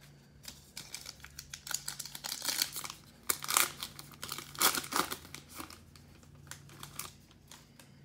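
A foil trading-card pack, a Panini Mosaic football pack, being torn open and its wrapper crinkled in the hands: a run of crinkling rips that is loudest midway, then dies down to a few light rustles near the end.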